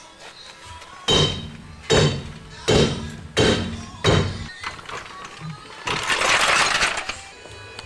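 A sledgehammer hitting a seized brake caliper: five hard metallic blows with ringing, about 0.7 s apart, to free the stuck caliper. About six seconds in comes a harsh noisy rasp lasting about a second.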